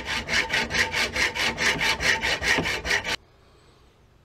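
Hacksaw cutting through the steel barrels of a double-barrelled 12-gauge shotgun held in a miter box, in quick, even strokes at about five a second. The sawing stops abruptly about three seconds in.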